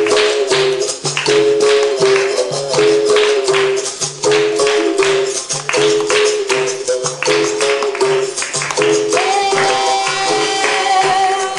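Capoeira music: berimbau and pandeiro playing a steady, repeating rhythm of strikes, with a long held note coming in about nine seconds in.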